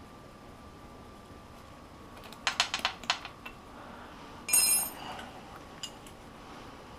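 Metal hand tools being handled: a quick run of sharp clicks about two and a half seconds in, then a wrench clinking with a brief metallic ring a second and a half later.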